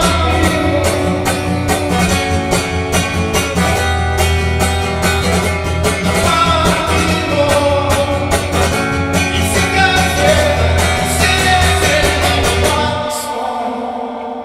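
Live rock band playing a song's instrumental outro: guitar over bass and drums, with a steady beat. About thirteen seconds in the bass and drums stop and the rest of the band fades out.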